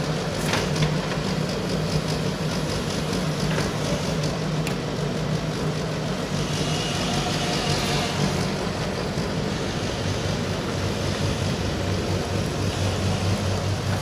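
JingGong JG100S wheeled excavator's diesel engine running steadily while it digs. The drone drops lower in pitch about ten seconds in, a brief higher whine comes in about halfway through, and there are a few faint knocks.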